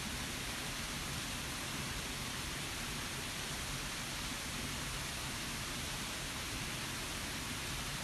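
Steady, even rushing of water falling at an ice-bound waterfall.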